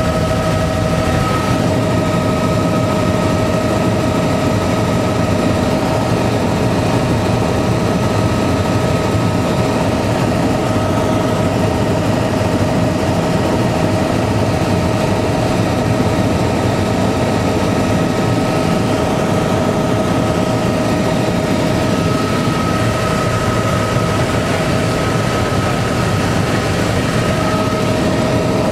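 Bell helicopter's engine and rotor running steadily in flight, heard from inside the cabin: a loud, even drone with a steady high whine over it.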